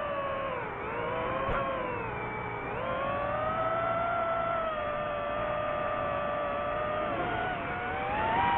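DJI FPV drone's motors and propellers whining, the pitch sagging and climbing several times as the throttle changes, with a rushing hiss of air beneath.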